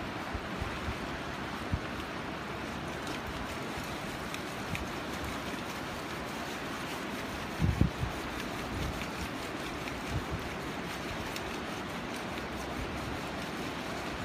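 Small North Sea waves washing in over a shallow sandy beach, with wind on the microphone. A brief low thump just past halfway.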